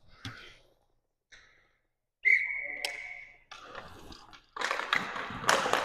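Referee's whistle blown once, a single steady blast of about a second, a couple of seconds in. Near the end comes a burst of noisy clatter with sharp clicks.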